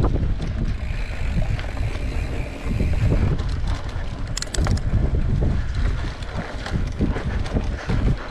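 Wind buffeting the microphone of a moving mountain bike, with the bike rattling and clicking over a rough dirt trail. A dense cluster of sharp clicks comes about four and a half seconds in.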